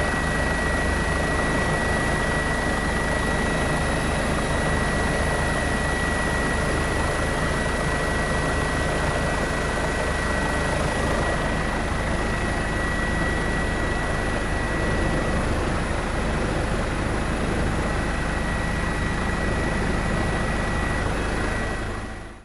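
Helicopter cabin noise recorded on board: a steady engine and rotor drone with a low pulsing rumble and a thin steady high whine, fading out and cutting off just before the end.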